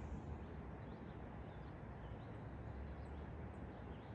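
Faint birds chirping, short high calls repeating two or three times a second, over a low steady rumble.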